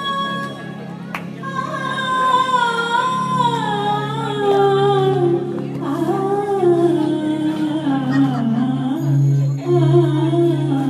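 Music: a sung melody winding and sliding downward over a steady low drone.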